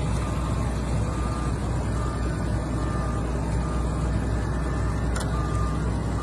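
Wheel loader's diesel engine running steadily under load as it pushes a pickup stuck in sand, with a backup alarm beeping repeatedly over the rumble. A short sharp knock about five seconds in.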